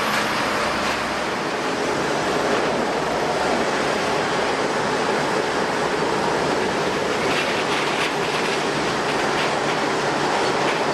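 Jet airliner engines running with a steady, even noise that holds at one level.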